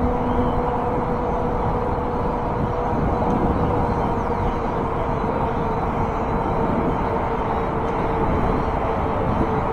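Ancheer electric bike riding at speed: a steady rush of wind and tyre noise with a thin steady whine from its hub motor that sags slightly in pitch near the end, over traffic on the road alongside.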